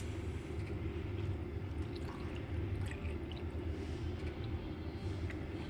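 Diesel being poured into a new fuel filter to fill it before fitting, with a faint trickle and a few light clicks over a steady low background hum.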